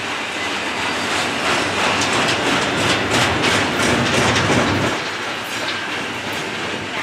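Double-stack container train of well cars rolling past close by: a steady rumble of steel wheels on rail with a run of sharp wheel clicks, loudest in the middle and easing slightly after about five seconds.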